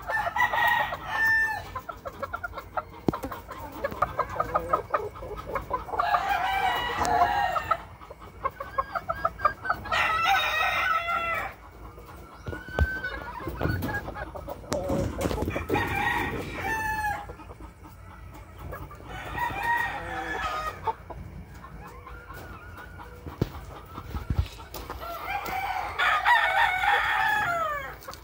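Young gamecocks crowing again and again, about six crows of a second or two each, with clucking between the crows.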